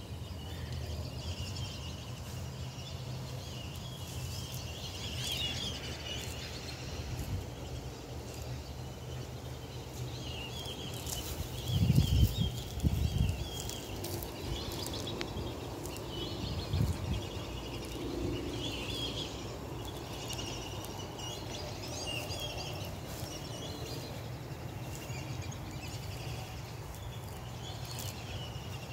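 Outdoor ambience: faint scattered bird chirps over a steady low rumble, with a brief louder low thumping about twelve seconds in.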